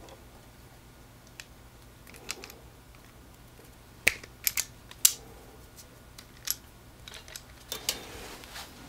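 Self-adjusting wire stripper clicking as its jaws grip and strip insulation off thin wires: a string of sharp clicks and snaps, the loudest cluster about four to five seconds in.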